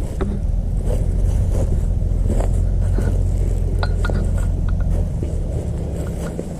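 A loud, steady low rumble that fades away over the last second or two, with a few scattered sharp clicks above it.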